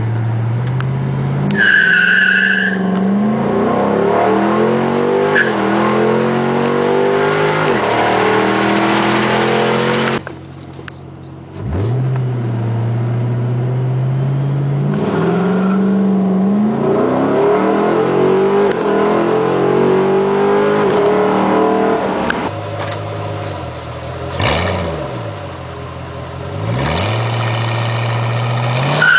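Ford Mustang GT's 4.6-litre V8 through a Pypes Violator exhaust, accelerating hard under full throttle: the engine note climbs in pitch and drops back at each automatic upshift, run after run. Most of it is heard from inside the cabin, with a brief high squeal about two seconds in.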